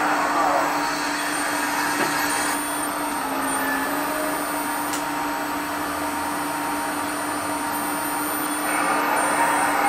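Hydraulic pump of a radio-controlled HMK 490 scale excavator running steadily with a constant whine as the grapple and boom work. It grows louder and rougher near the start and again from about nine seconds in, as the arm lifts the load.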